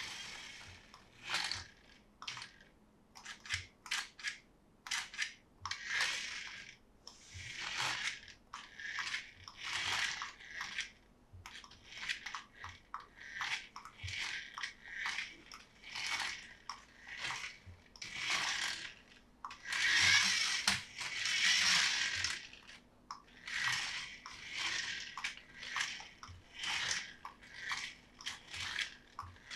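Toy packaging being handled and opened: irregular bursts of crinkling and rustling, with a longer, denser stretch about twenty seconds in.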